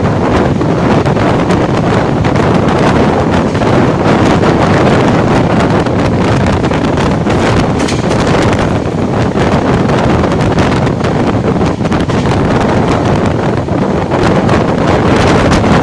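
Wind buffeting the microphone over the steady rumble of a passenger train's wheels on the rails, heard from an open coach door of the moving train.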